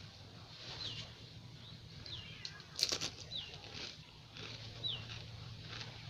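Small birds chirping, about five short calls that each drop quickly in pitch, spaced a second or so apart. A brief crackling crunch, the loudest sound, comes about three seconds in.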